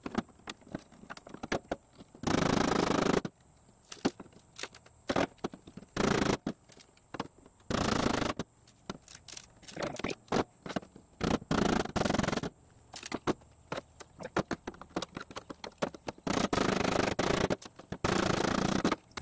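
Hand-tool work on a truck door: scraping and clicking, with five short bursts of hissing noise, each about a second long.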